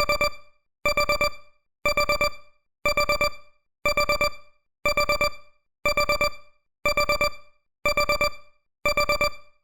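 Electronic timer alarm beeping: groups of four quick, high-pitched beeps repeating once a second, signalling that the countdown has reached zero.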